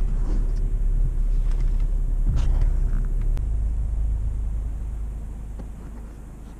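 Road and engine noise inside a moving car's cabin: a steady low rumble with a few faint clicks, easing off over the last couple of seconds.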